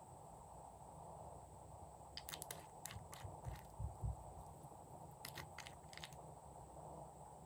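Glossy slime being squished and mixed by hand, giving soft sticky clicks and pops in a few short clusters and some dull low thuds.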